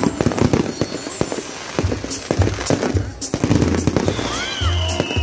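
Fireworks going off in rapid, irregular bangs and crackles. Music with a pulsing bass beat comes in about two seconds in.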